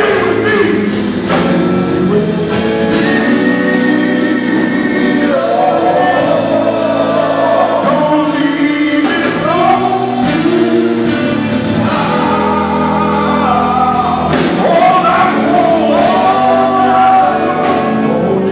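Male gospel vocal group singing live through microphones in close harmony, backed by a band with drums and electric bass.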